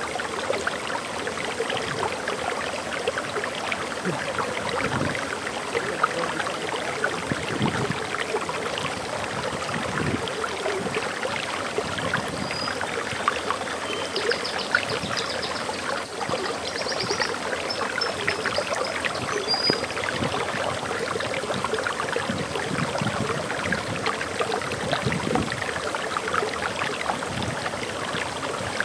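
Water flowing and splashing over a small waterfall, a steady rushing with constant small splashes. A few faint high bird chirps come in briefly around the middle.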